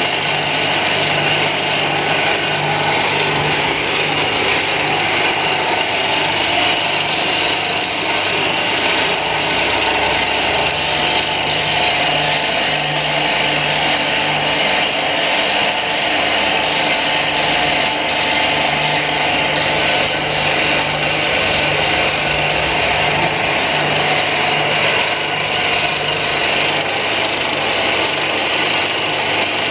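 Rod chamfering machine running steadily while chamfering metal rod ends: a constant electric-motor hum under a dense machining noise, with a faint regular ticking about twice a second.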